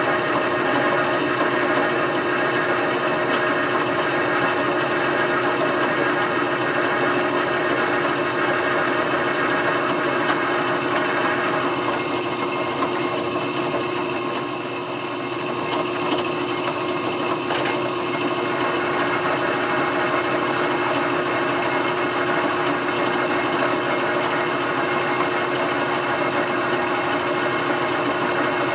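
Metal lathe running in back gear, a steady mechanical whir with a constant gear whine, while a single-point tool cuts 13-threads-per-inch threads on a shaft. The sound dips slightly about halfway through, then carries on unchanged.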